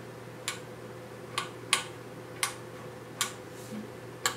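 Rotary band-selector switch on a Knight KG-650 RF signal generator clicking through its detents as it is turned, six sharp clicks at uneven spacing over a steady low hum.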